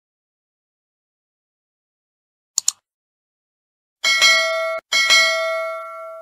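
Subscribe-button animation sound effects: a quick double mouse click about two and a half seconds in, then a notification bell chime ringing twice, about a second apart, the second ring fading out.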